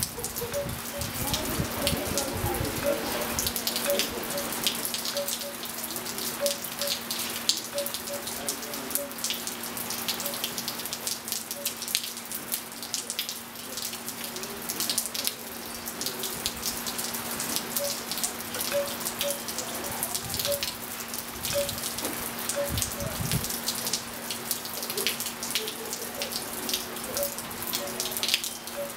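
Steady rain falling on a pool and patio, with many irregular drips and short pitched plinks, over a steady low hum.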